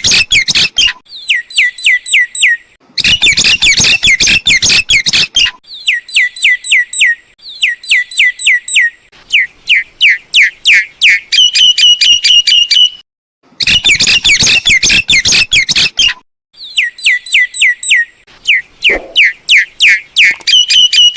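Myna calling in repeated phrases: harsh rasping bursts alternating with fast runs of short, downward-sliding whistled notes and strings of short high notes on one pitch. The same sequence comes round again about ten seconds later.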